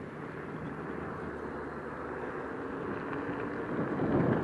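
Wind rushing over the microphone with tyre rumble on rough asphalt while riding, getting louder near the end.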